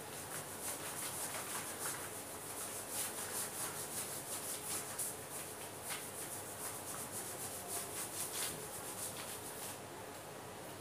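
A cloth wiping marker off a plastic-covered chart sheet in repeated quick rubbing strokes, stopping near the end.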